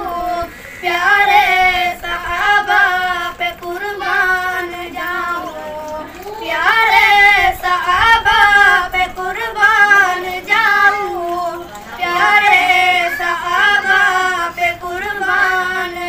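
Two boys singing a naat, an Urdu devotional song in praise of the Prophet Muhammad, together and without instruments, in long drawn-out melodic phrases with brief pauses for breath.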